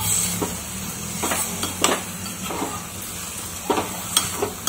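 A metal spoon stirring prawn masala in a metal pot, knocking and scraping against the pot in irregular clicks, over a steady low hum.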